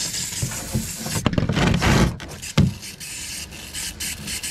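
Spray cleaner hissing steadily from a hand-held spray nozzle onto the oily sump and drain plug, cutting off sharply at the end. A few dull knocks sound in the middle.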